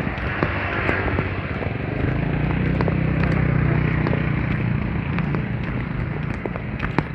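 A motor vehicle's engine hum swells and fades as it passes, over a loud, constant noisy background full of sharp crackles and clicks.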